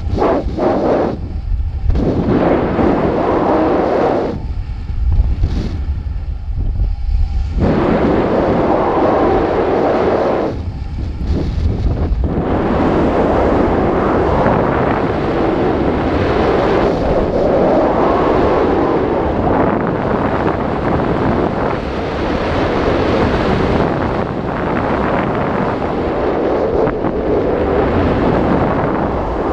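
Wind buffeting the microphone of an action camera hanging under an ascending weather balloon: a loud, rough rushing noise with a deep rumble, dropping away briefly a few times in the first dozen seconds.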